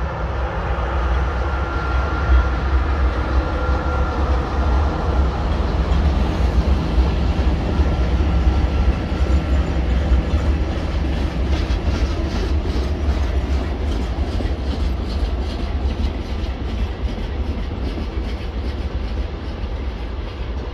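ST44 (M62-type) diesel locomotive's two-stroke V12 engine running as it hauls a freight train past, then the train's wagons rolling by with a deep rumble and a steady rhythm of wheel clicks on the rails that becomes clearer in the second half.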